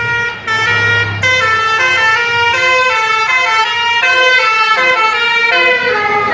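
Bus 'telolet' Basuri multi-tone air horn playing a melody: several loud horn notes at once, stepping up and down in pitch every quarter to half second, with short breaks between phrases.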